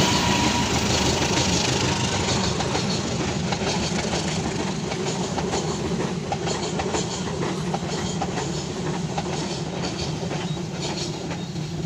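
Passenger train hauled by a CC 203 diesel-electric locomotive passing close by: the locomotive goes past at the start, then the coaches' wheels click over the rail joints in an irregular clickety-clack, the rumble fading slowly as the train moves away.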